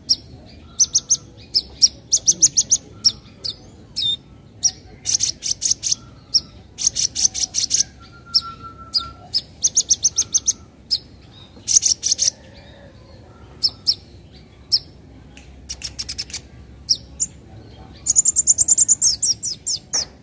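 Kolibri ninja sunbird (konin) singing: repeated bursts of quick, high, chattering notes with short pauses between, and a longer fast run of notes near the end.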